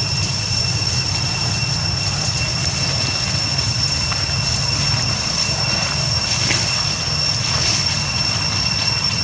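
A steady drone: a constant high-pitched whine over a low rumble, with a few faint ticks or rustles in the middle.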